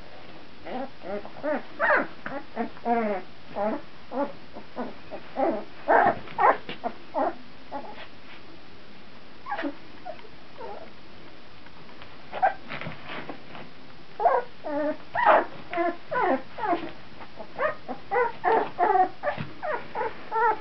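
Two-week-old Brittany puppies whimpering and squeaking: many short, quavering cries in clusters, thinning out in the middle and coming thick and fast near the end.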